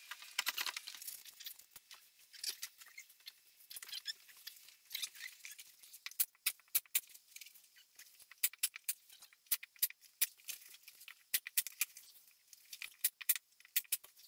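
Faint rustling, then many small irregular clicks and crackles, densest in the second half, from foam padding and upholstery fabric being handled and stretched over a plywood seat board.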